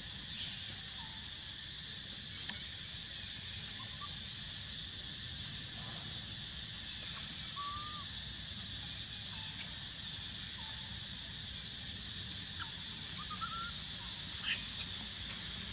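Forest ambience: a steady high-pitched insect drone, with scattered short chirps and a brief run of louder high chirps about ten seconds in.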